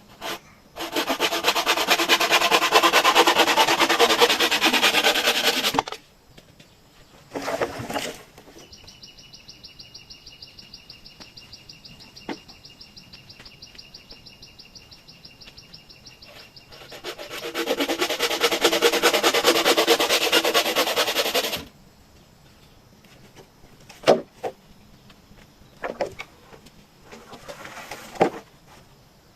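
A tool rasping through bamboo in two long, loud spells of about five seconds each. Between them a steady, rapid, high-pitched insect trill runs for several seconds, and a few short knocks come near the end.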